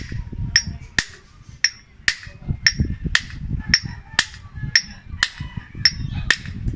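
Hammer striking a steel tensioner pulley held in the hand, about two sharp metallic taps a second, each with a short ring, knocking the old bearing out of the pulley.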